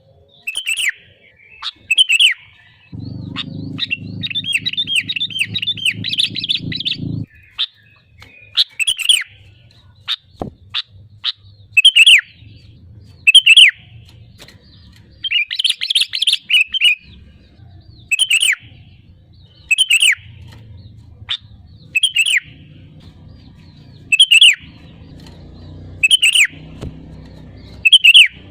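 Sooty-headed bulbul calling: short, sharp falling notes repeated about every second and a half, broken twice by a longer burst of rapid chattering. A low hum runs underneath at times.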